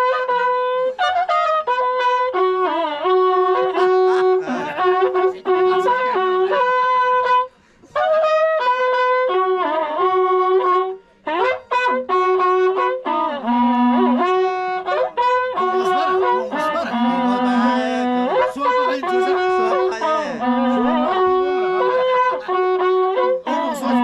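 Waqrapuku, coiled cow-horn trumpets (cornetas), played together in a melody of long held notes in short phrases, with two brief pauses about seven and eleven seconds in.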